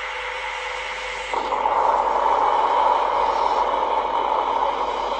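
Science-fiction TV sound effect: a steady rushing hiss that steps up louder about a second in.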